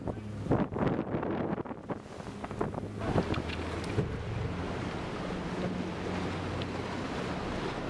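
A small tour boat's motor hums steadily while water splashes against the hull and wind buffets the microphone. The gusts and splashing are heaviest in the first three seconds, then ease to a steadier hum and wash.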